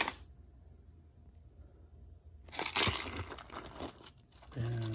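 Packaging being handled as kit parts are unpacked: a sharp rustle at the start, then about two seconds of crinkling and tearing rustle after a quiet pause.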